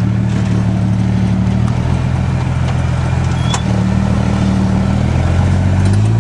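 Off-road vehicle engine running at low, steady revs while crawling over slickrock, its note shifting a couple of times and rising briefly near the end as it picks up throttle.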